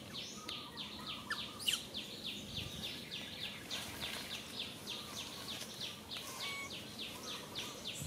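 Forest ambience: a high chirp repeated steadily about three to four times a second, with a few short whistles lower down and one brief sharper sound about two seconds in.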